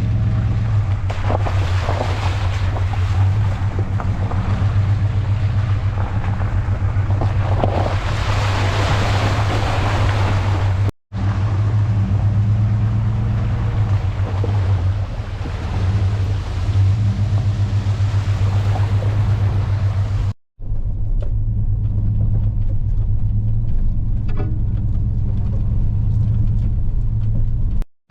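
Truck driving along a road: a steady low engine and road drone with a rush of tyre noise over it, cut off abruptly twice.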